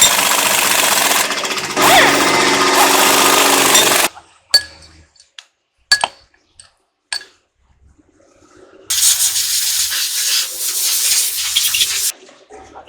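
A power tool runs loud and steady in two long bursts, the first about four seconds and the second about three, with a few sharp clicks in between.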